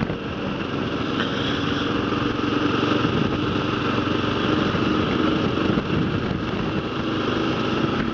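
Kawasaki KLR650's single-cylinder engine running steadily while riding, with wind noise.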